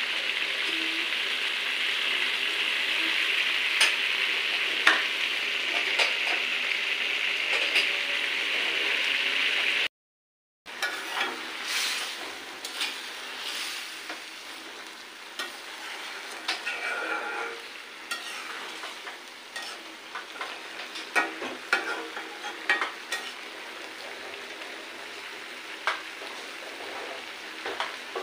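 Fish curry sizzling and bubbling in a metal pot, with a steady hiss for the first ten seconds. After a brief gap of silence, a metal spatula stirs it, scraping and clicking against the pot over a quieter sizzle.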